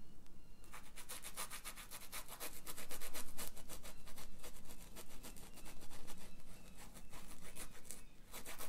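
Paintbrush held flat, scrubbing rapid short strokes across a textured canvas so that it catches only the high points of the weave: a dry scratchy rubbing, several strokes a second.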